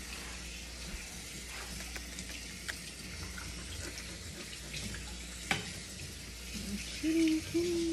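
Kitchen tap running steadily into a sink, with one sharp knock about five and a half seconds in.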